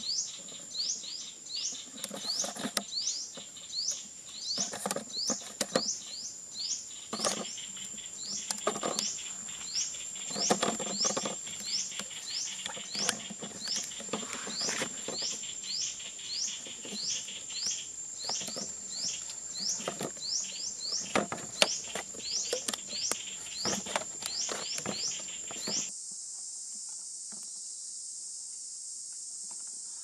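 Hands working a plastic bottle, wooden sticks and a rubber band, making irregular taps, crinkles and rustles. Behind them an insect calls with quick rising chirps, about two a second, over a steady high whine. About four seconds from the end this switches abruptly to a steady high insect hiss.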